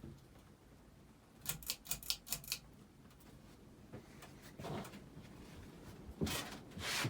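Ceiling fan pull chain switch clicking through its speeds, a quick run of about six sharp clicks about a second and a half in, followed later by a few short rustling noise bursts.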